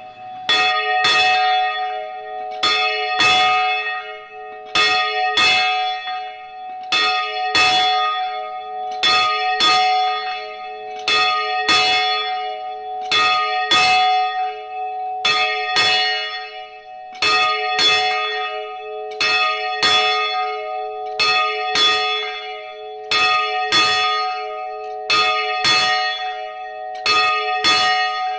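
A large bell being rung continuously, struck over and over at roughly one to two strokes a second, often in quick pairs. Its low ringing tone carries on between the strokes.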